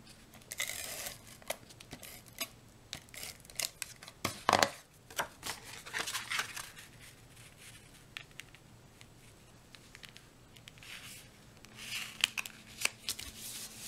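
Cardstock being handled and pressed down onto a card base: paper sliding and rustling with scattered light taps and scrapes, the loudest about four and a half seconds in and again near the end.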